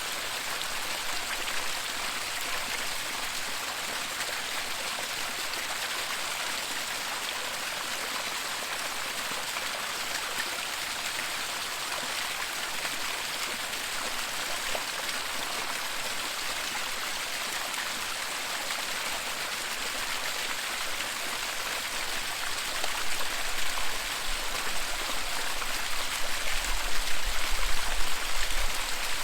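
Waterfall: steady rushing and splashing water. From about three quarters of the way in, a low, uneven rumble joins it and the sound grows louder.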